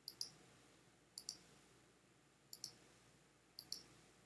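Computer mouse button clicked four times, about a second apart, each a quick press-and-release pair of ticks, as shapes are filled one by one with a paint-bucket tool.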